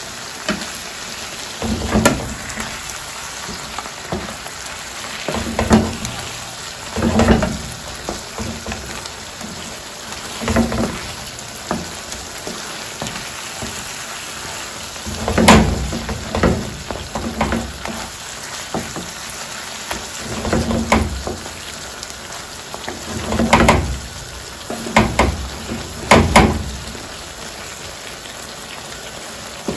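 Shrimp and sauce sizzling steadily in a frying pan, with a wooden spatula scraping and stirring against the pan in short strokes every few seconds.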